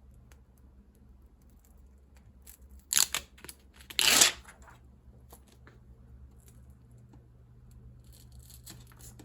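Hook-and-loop fastener tape being handled by hand: light crinkling and clicks, a couple of quick rips about three seconds in, then a longer tearing rip about four seconds in.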